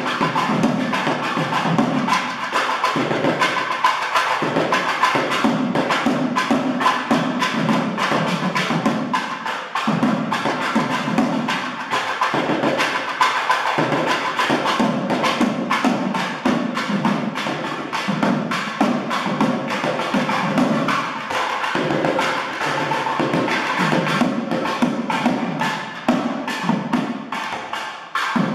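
South Indian temple barrel drums (thavil) played in a fast, dense rhythm of sharp strokes.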